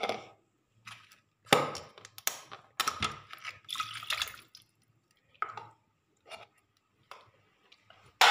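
Clear plastic bags crinkling in short, irregular bursts as curry is handled and tipped into an aluminium pot, with some liquid splashing and dripping.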